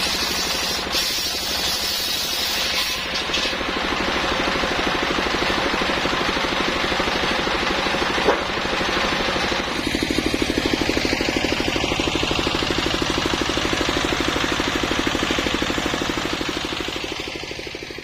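Circular sawmill blade ripping a coconut palm log lengthwise into beams: a steady hiss from the cut over a rapid, even pulsing from the machine. The pulsing grows stronger about ten seconds in, and the sound fades out near the end.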